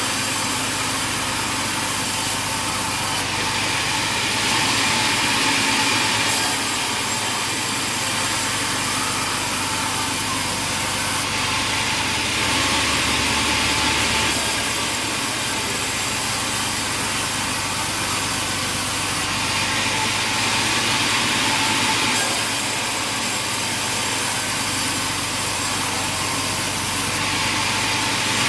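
Sawmill machinery running steadily while a saw cuts through timber, getting louder and sharper in repeated passes about every seven or eight seconds.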